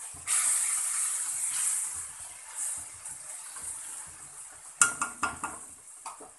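Hot liquid sizzling on roasted semolina in a wok: a loud hiss for about a second and a half that then fades. Near the end a spatula stirring and knocking several times against the wok.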